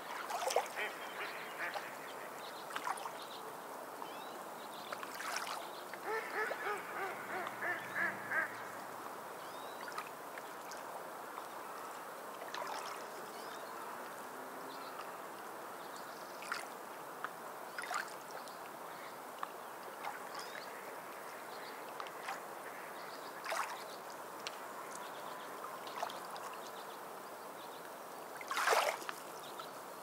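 Steady wash of sea surf with bird calls over it: a quick run of calls about six to eight seconds in, scattered single calls, and a louder burst near the end.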